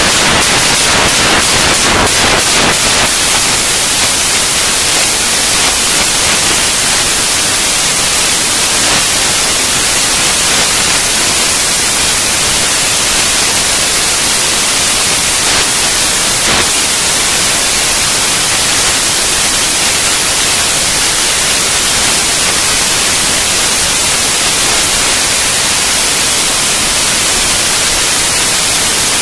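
Steady, loud rushing noise of wind and spray over the microphone of a mast-mounted action camera on a windsurfer under sail.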